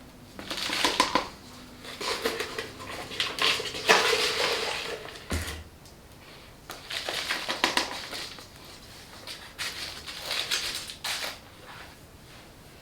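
Potting soil being handled while repotting a houseplant: irregular bursts of scraping and crunching as soil is scooped and pressed into the pot, with a dull knock about five seconds in.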